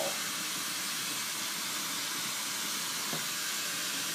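Bench-mounted glassworking torch burning with a steady hiss while fire-polishing a glass piece in its flame, with one faint tick about three seconds in.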